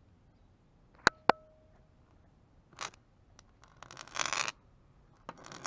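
Fingers handling a small object on a concrete surface: two sharp clicks about a second in, the second with a brief ring, then short bursts of scraping and rubbing.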